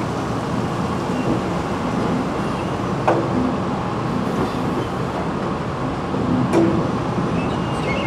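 Steady din of a fruit bin dumper and flume line: conveyor machinery running and water churning in the flume tanks. Two sharp clunks, about three seconds in and again about six and a half seconds in, the second with a short ringing tone.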